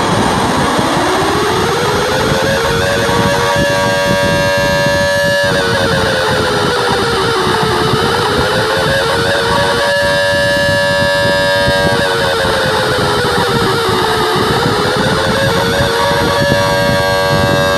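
Emergency alert alarm siren: a wailing tone with many overtones that slowly rises and falls, peaking about every six seconds, over a steady wash of loud noise.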